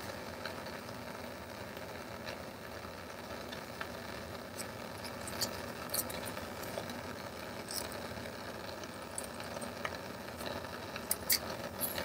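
Steady hiss of a lit Bunsen burner flame, with scattered light clicks and taps from glass culture tubes and their caps being handled, more of them about halfway through and near the end.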